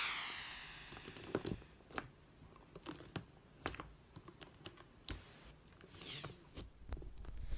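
Fingers pressing and poking clear slime packed with strawberry fimo slices, giving scattered soft crunchy clicks and small pops. A ringing effect fades out in the first second.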